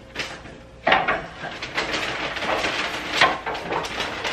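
Takeout containers and platters being handled on a kitchen counter: a busy run of rustling, clattering and scraping that starts about a second in.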